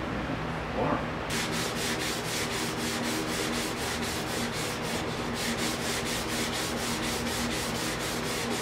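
Hand-sanding a thin wood lamination strip with a sanding block, in quick even back-and-forth strokes that begin about a second in, over a steady low hum.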